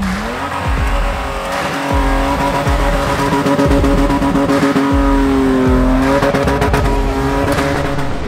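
Toyota Hilux engine revving hard at full throttle, around 4,000 RPM, as it labours up a soft sand climb. Its pitch rises over the first two seconds, then holds steady.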